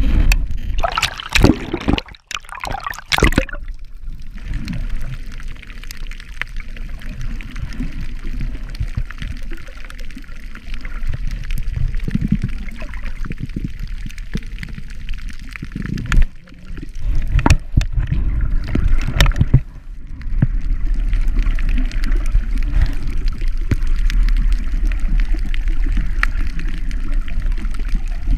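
Muffled underwater sound picked up by a camera below the surface: a steady low rumble of moving water with a fine crackle. It swells into louder stretches of gurgling, sloshing water noise about a second in and again a little past the middle.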